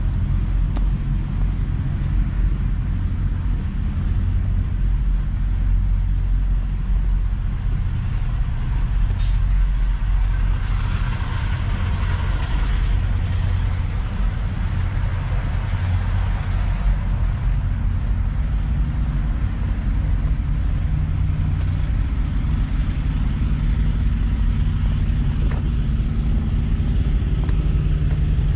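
Idling diesel semi-truck engines, a steady low rumble. A hissing rush swells about ten seconds in and lasts several seconds, and a faint high whine joins in the last ten seconds.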